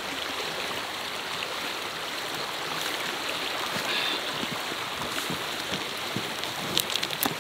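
River rushing steadily over a gravel bed, an even continuous flow, with a few light clicks near the end.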